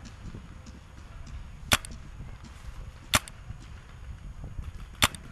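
Paintball marker firing three single shots, each a sharp pop, about one and a half to two seconds apart.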